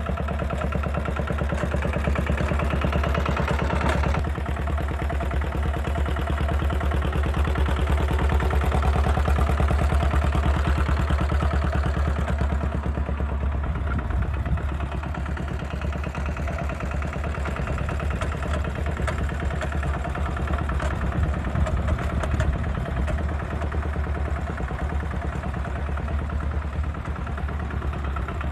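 Small vintage tractor's engine running steadily as it drives across grass, with a fast, even pulsing beat.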